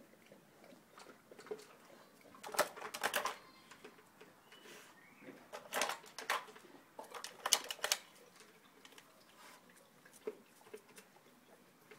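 Dogs nosing and pushing plastic puzzle feeders, kibble and hard plastic parts clattering in three short bursts of rapid clicks, with lighter ticking between.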